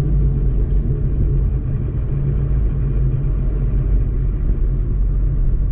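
Steady low drone of a Ford Mustang Boss 302's 5.0 V8 and drivetrain, heard from inside the cabin while driving, with road rumble.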